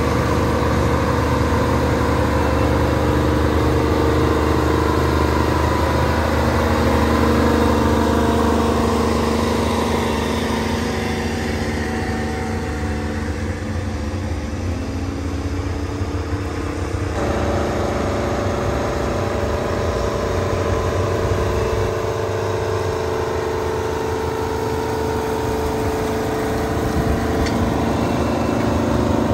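Tractor engine running steadily, its note shifting abruptly about seventeen seconds in.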